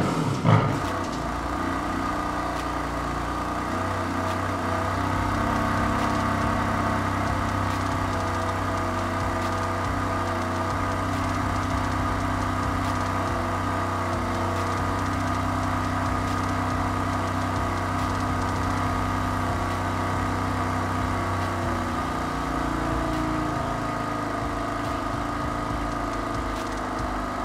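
BMW F80 M3's twin-turbo straight-six starting with a brief rev flare, then idling steadily. The idle note changes slightly about three-quarters of the way through.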